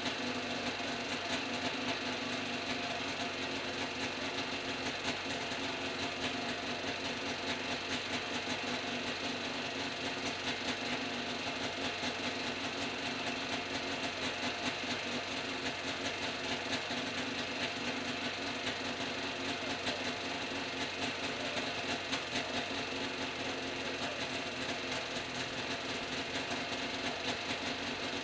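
Small engine of a homemade backpack helicopter running steadily at a fast, even speed while its carburetor is being tuned.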